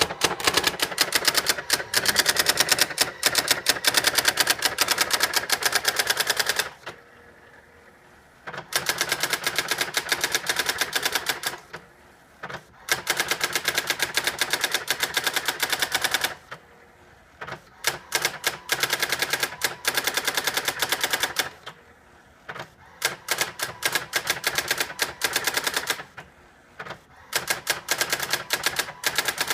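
Brother Correctronic GX-6750 electronic typewriter printing its self-demo, its daisy-wheel mechanism striking characters in a rapid, even machine-gun clatter. The printing comes in runs of several seconds broken by short pauses.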